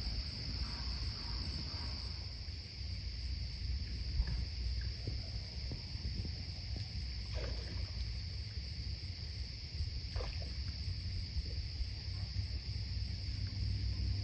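Steady high insect chirring with a fine pulsing edge, over low wind rumble on the microphone; a couple of faint short sounds come through about halfway.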